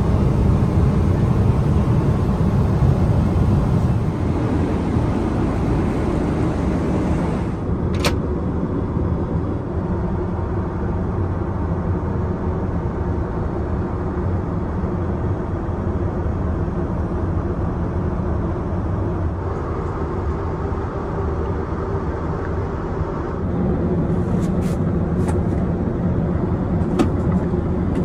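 Steady in-flight cabin noise of a Boeing 777-300ER: the constant rush of airflow and engines. The noise shifts in tone about eight seconds in, with a sharp click there and a few light clicks near the end.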